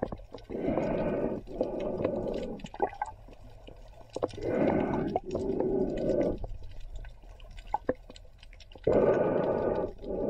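Muffled breathing through a snorkel, heard underwater: three breaths, each a breath drawn in followed by a breath out, about four seconds apart, with faint water clicks between them.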